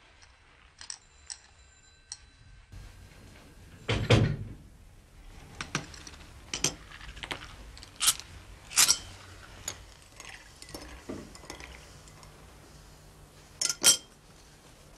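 Soundtrack of a meeting-room scene: a heavy thump about four seconds in, then sharp clinks of china teacups set on saucers and glassware knocking, spread out one by one.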